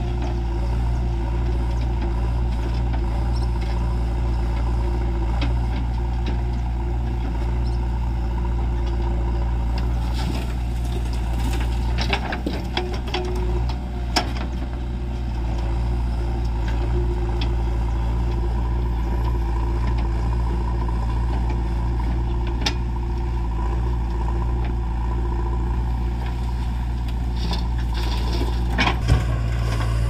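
JCB backhoe loader's diesel engine running steadily as it digs and loads soil into a tipper truck, with a few short sharp knocks now and then.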